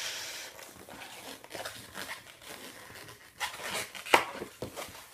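Air rushing at the nozzle of a long latex twisting balloon, fading out about half a second in, then the rubbery squeaks and crinkles of the inflated balloon being squeezed and handled, with one sharp squeak about four seconds in.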